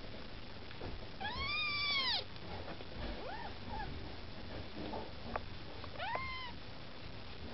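Young Maine Coon kittens mewing while nursing: a long, high mew that rises and falls about a second in, a short one around three seconds, and another around six seconds.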